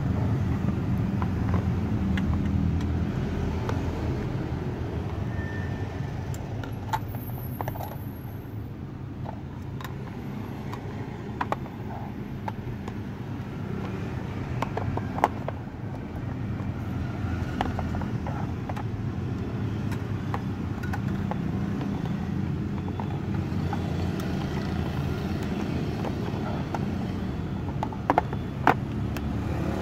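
A steady low rumble, with a few sharp clicks of hard plastic goggle cases being picked up and handled, two of them close together near the end.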